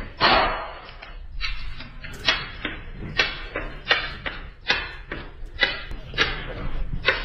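A run of sharp knocks or taps, about two a second, repeated steadily.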